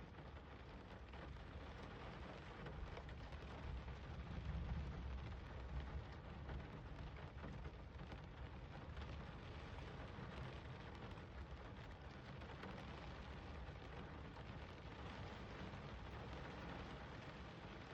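Steady rain falling, an even hiss with a low rumble underneath that swells slightly a few seconds in.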